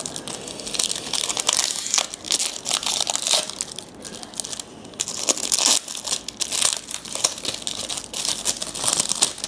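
Plastic trading-card pack wrapper crinkling as it is torn open and handled, in irregular spurts with a short lull in the middle.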